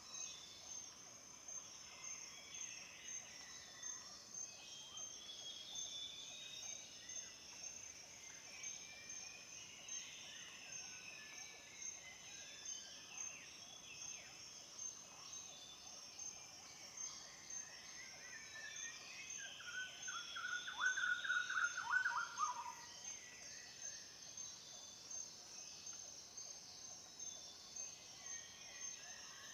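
Several songbirds singing at dawn over a steady, pulsing high-pitched insect drone. About two-thirds of the way through, one bird sings a louder, falling trill.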